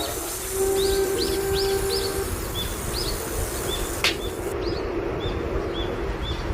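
Small birds chirping over and over in short, quick calls. About half a second in, a cat's low, drawn-out yowl holds one pitch for nearly two seconds. There is a single sharp click near the middle.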